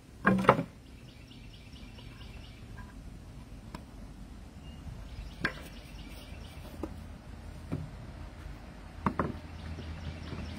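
Cedar fence boards knocking against each other as they are handled and fitted into a raised-bed frame: one sharp wooden clatter about half a second in, then a few light knocks and taps.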